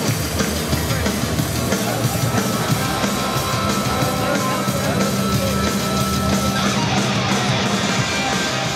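Loud rock music with guitar and drums, thinning slightly near the end.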